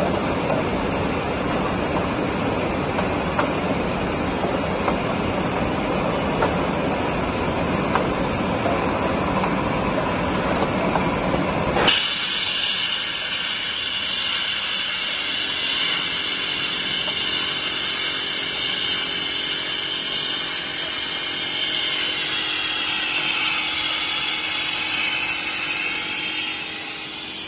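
Three-in-one bottle washing-filling-capping machine running: a steady dense whir and hiss with a few faint ticks. About halfway through the sound changes abruptly to a thinner running noise with a high whine that sags slightly in pitch near the end.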